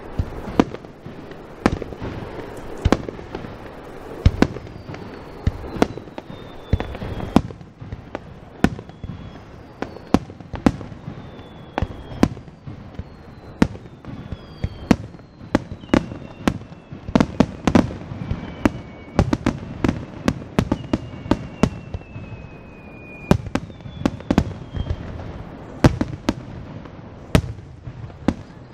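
Japanese aerial firework shells bursting in quick succession: a long string of sharp bangs, thickest in the second half, with several faint whistles falling in pitch.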